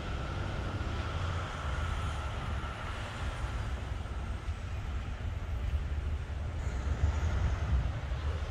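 Steady low outdoor rumble. A faint thin steady tone sounds for about the first three seconds.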